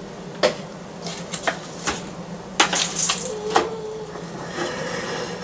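Irregular sharp clicks and knocks of pistachios being shelled over a container, with a brief scrape of a saucepan shifted on the gas stove's grate a little past halfway.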